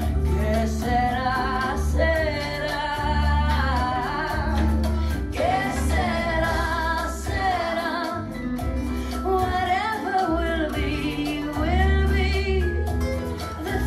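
A woman singing long melodic lines with vibrato, without clear words, over band accompaniment with a steady bass line.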